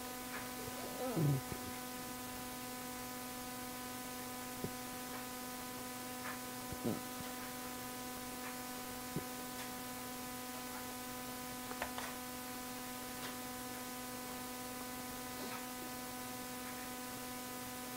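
Steady electrical hum, several even tones at once, with a few faint clicks and short chirps scattered through it.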